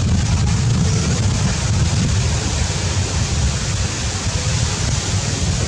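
Steady outdoor background noise: a continuous low rumble with an even hiss above it.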